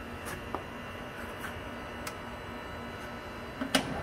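Faint steady hum with a few light ticks, then a sharp click near the end from a control knob on the Harrison Alpha 400 CNC lathe's saddle-mounted panel. The spindle is stopped while the speed-range change timer runs out.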